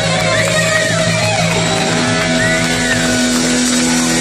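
Live rock band playing, with electric guitar to the fore over bass and drums.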